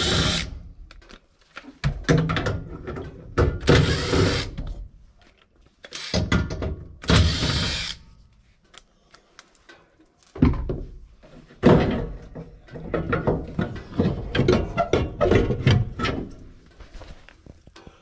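Cordless driver run in several short bursts, backing out a screw in a furnace's burner compartment, followed by a long run of metal clunks and knocks as parts are handled.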